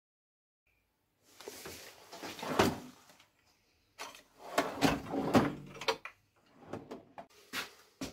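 Metal tool chest drawers sliding open and shut, with tools clattering inside as they are rummaged through, in two main bouts. A few lighter knocks of hand tools follow near the end.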